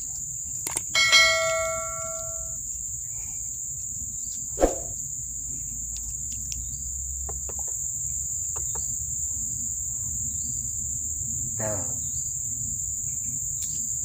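Insects buzzing steadily at a high pitch. About a second in, a sharp metallic clang rings for about a second and a half. A single knock comes a few seconds later and another brief sound near the end.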